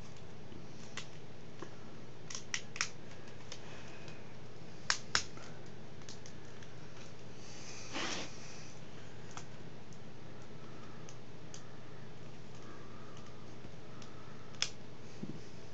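Scattered small clicks and taps of plastic laptop parts being handled and unclipped while the display ribbon-cable connector is reached, with two sharper clicks close together about five seconds in and a short rustle around eight seconds.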